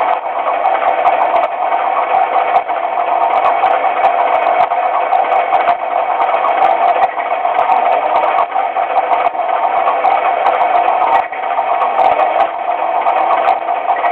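Motor and gear drive of a TMCC model crane car running steadily as the boom swings and lifts: a continuous mechanical whir with light rattling.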